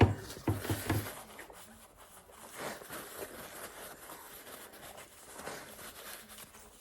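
Close-up eating sounds: chewing and mouth noises from biting into air-fried pizza, with a cluster of sharp clicks and low thumps in the first second, then softer irregular chewing.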